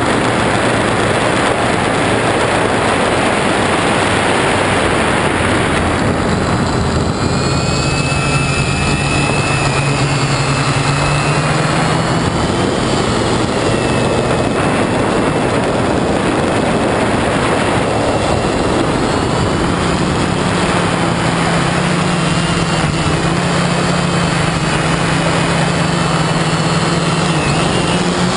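Quadcopter's electric motors and propellers heard through the onboard camera's microphone during a descent, under a loud rush of air. About six seconds in the rushing eases, and a low propeller hum and high motor whines come through, gliding up and down in pitch as the throttle changes.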